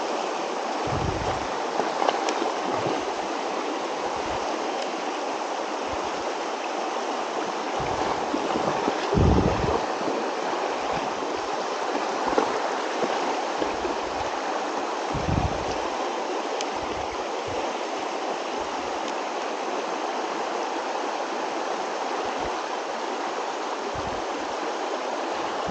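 Shallow rocky river rushing steadily over stones, with a few low thumps on top, the loudest about nine seconds in.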